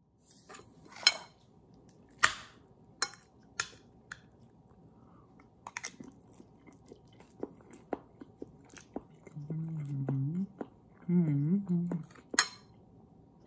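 A person chewing a mouthful of food close to the microphone, with a scatter of sharp clicks and taps. Twice near the end comes a short low hummed voice.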